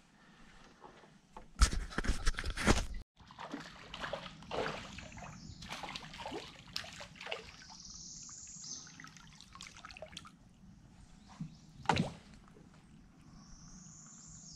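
Fishing tackle and gear knocking and rattling in a small kayak, loudest in a burst about two seconds in, then scattered clicks and light water sloshing. A bird gives a high, rising-then-falling whistle twice, about eight seconds in and near the end.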